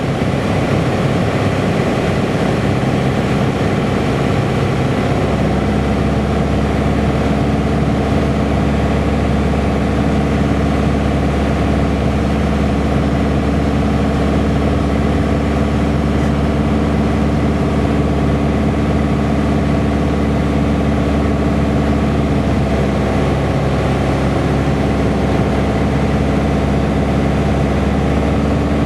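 Steady drone of a single-engine Piper's piston engine and propeller heard inside the cockpit during the landing approach. The pitch of the drone shifts slightly about five seconds in, then holds steady.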